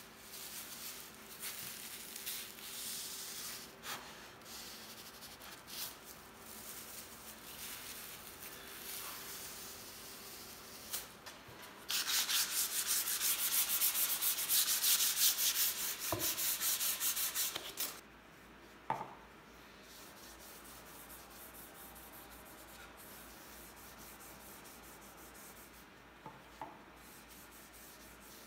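Hands and a cloth rubbing over a pine board and its hardwood runner. There are soft strokes at first, then about six seconds of fast, loud scrubbing near the middle, then quieter cloth wiping, with a few light knocks of wood on the bench.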